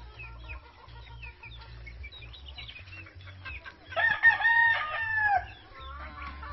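Chickens clucking and chirping, with a rooster crowing loudly about four seconds in, one drawn-out crow lasting about a second and a half.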